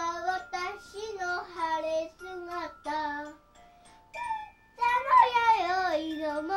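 Young girl singing in short phrases of held notes, with a pause midway, and a few faint, thin high tones behind her voice.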